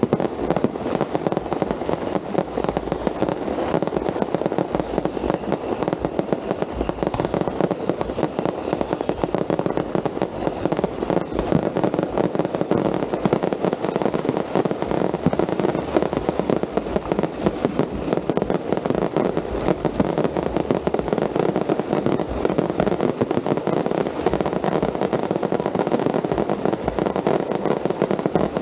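Fireworks and firecrackers crackling in a dense, continuous barrage of rapid pops with no pause.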